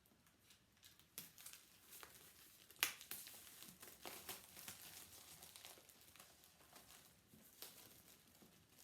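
Faint crinkling and tearing of a MacBook Pro box's paper packaging as it is opened, with scattered sharp snaps, the loudest nearly three seconds in.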